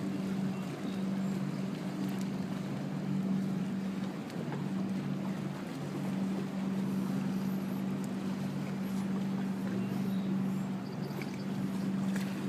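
A motor running steadily with a low, even hum, with some wind noise.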